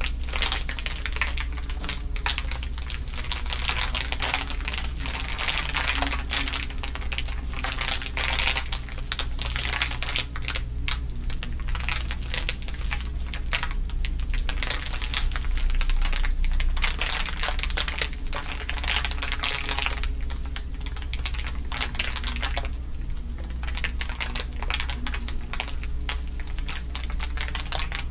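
Layered ASMR crinkling, a dense, continuous crackle of many small clicks, over a steady low hum.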